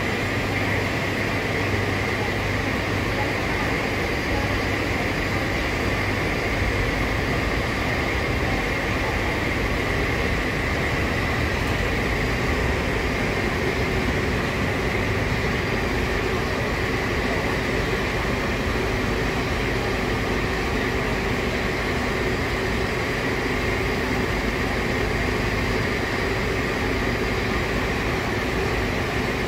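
Pole-mounted electric buffer running steadily with its pad pressed against an airliner's painted fuselage, dry-washing the skin.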